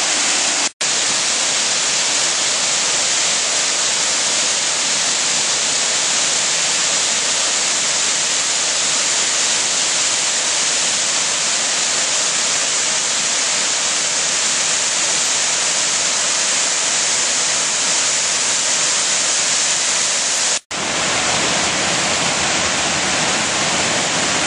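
Steady rush of waterfalls and a cascading creek, water pouring over rock ledges. The rush drops out briefly twice, about a second in and near the end.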